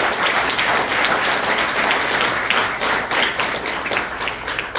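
Audience applauding, many hands clapping together; the clapping dies away near the end.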